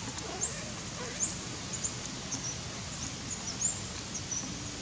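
High-pitched bird chirps, short and often rising at the end, repeating irregularly a few times a second over a steady outdoor hiss.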